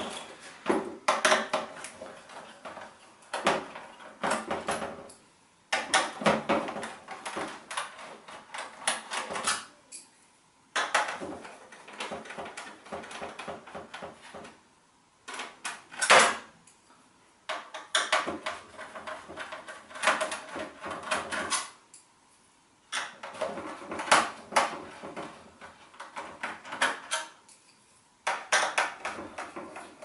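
Small screwdriver working the screws out of the thin metal RAM shielding of an all-in-one PC, with clicks, scrapes and light metal clatter. It comes in bursts, with several short pauses between them.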